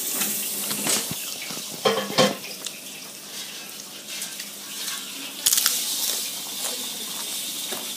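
Steady hiss of food cooking on an electric stove, with a few clinks and knocks of pots and dishes near the start. The hiss gets louder about five and a half seconds in.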